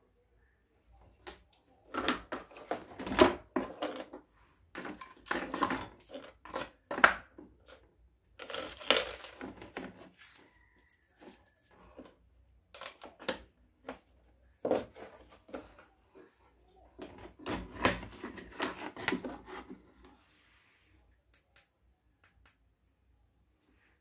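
Hands handling the plastic housing and parts of an opened digital kitchen scale on a wooden bench: clusters of plastic clicks, knocks and rubbing, each lasting one to three seconds, with quiet gaps between.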